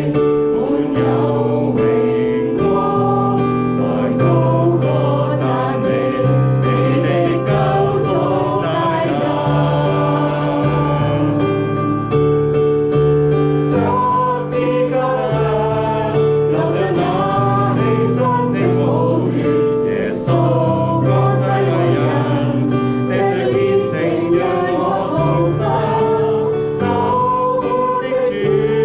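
Congregation singing a worship song with piano accompaniment: sustained piano chords under many voices.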